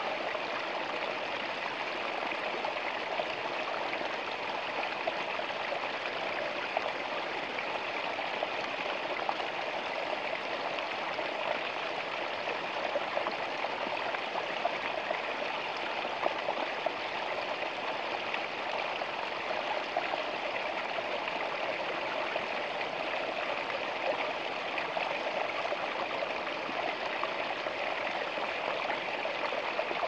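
Small woodland stream falling in thin cascades over rocks, with a steady splashing and trickling rush that never lets up.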